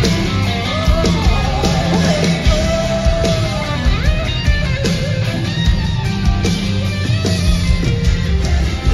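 Live band playing rock-style music at concert volume, electric guitar and drums to the fore, with a long held note near the middle.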